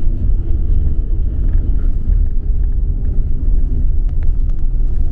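Steady low rumble of a moving road vehicle, heard from inside.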